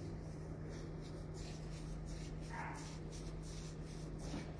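Soft rustling and scraping of movement, with a brief high squeak about halfway through, over a steady low hum.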